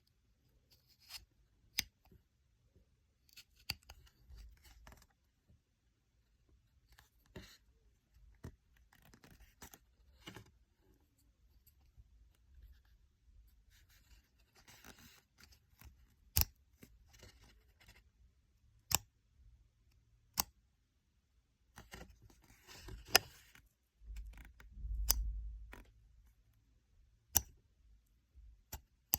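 Handling of an airsoft reflex dot sight and its packaging: a string of separate sharp clicks spread out over the stretch, with bouts of rustling and a low rumble about twenty-five seconds in.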